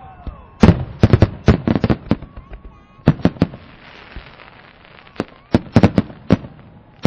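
Fireworks going off in rapid clusters of sharp bangs and crackles: a volley about a second in, another around three seconds, and a third near the end. A faint whistle comes between the volleys.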